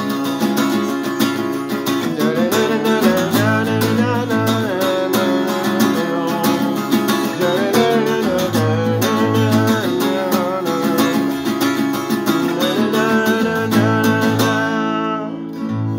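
Acoustic guitar strummed steadily while a male voice sings along. Near the end the strumming stops and the last chord rings out and fades.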